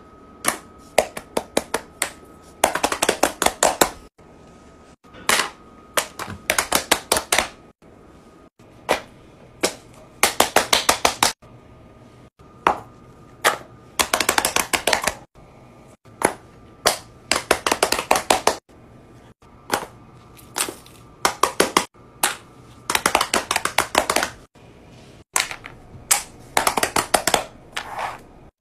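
Silicone pop-it fidget toys being popped in quick runs of sharp pops, with single pops and taps between.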